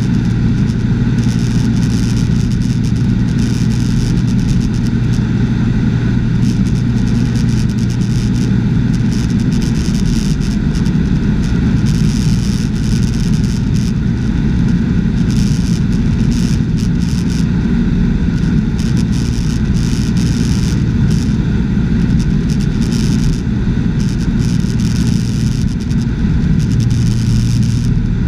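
Cessna 210's flat-six piston engine and propeller droning steadily in flight, heard inside the cabin with rushing air noise. The deepest tone drops a little about ten seconds in and comes back strongly near the end.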